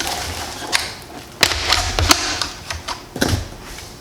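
Irregular sharp clicks and knocks of a Charles Daly N4S 12-gauge bullpup shotgun being handled, several hard strikes with the firmest about one and a half, two and three seconds in.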